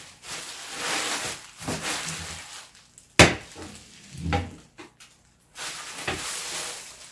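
Clear plastic wrapping crinkling and rustling in bursts as it is pulled off a car-audio subwoofer, with one sharp knock about three seconds in.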